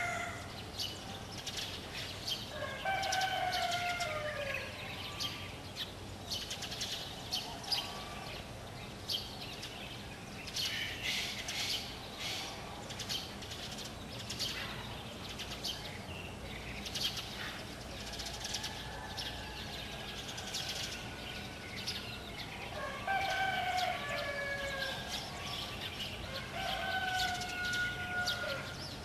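A rooster crowing several times, each call falling in pitch at its end, with short high chirps of small birds in between.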